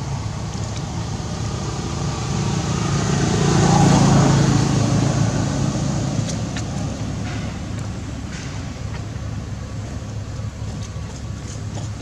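A motor vehicle passing by: a steady low hum whose noise swells to a peak about four seconds in and then fades away.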